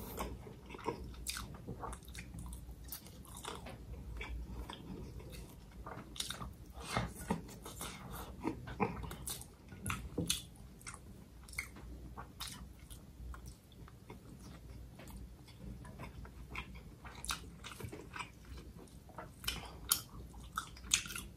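A person chewing and biting a mouthful of nasi ambeng close to the microphone, with irregular small clicks and crunches.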